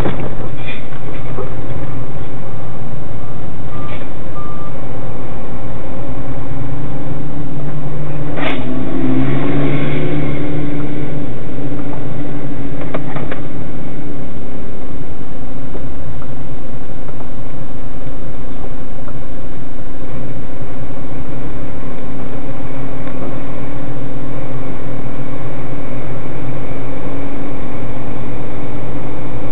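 Vehicle engine running steadily at low speed, heard loud from inside the cab through a dashcam microphone, with a sharp knock about eight and a half seconds in and a couple of lighter ticks a few seconds later.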